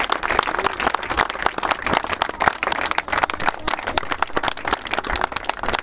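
A small crowd applauding: many pairs of hands clapping in a dense, uneven patter.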